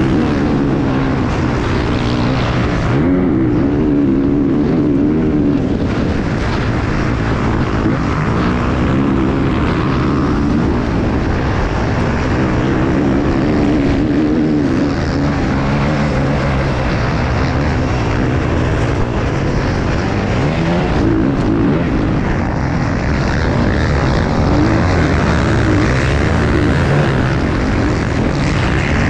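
Racing enduro motorcycle engine heard from a camera mounted on the bike, revving hard and dropping again and again as the rider works the throttle and gears.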